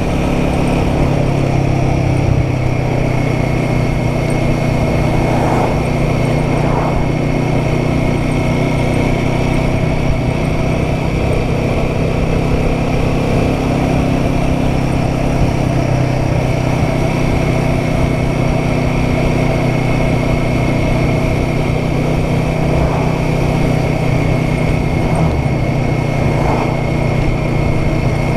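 Royal Enfield Guerrilla 450's single-cylinder engine running at steady revs on the move, over a steady rush of wind.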